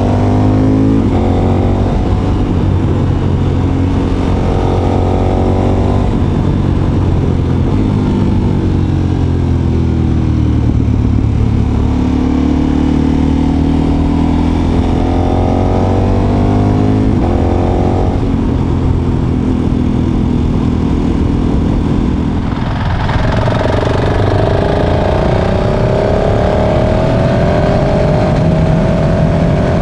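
KTM 1290 Super Adventure's V-twin engine running under way, its pitch rising repeatedly with acceleration and dropping at gear changes. About 23 s in it cuts to a different motorcycle's engine with a higher note and more wind hiss.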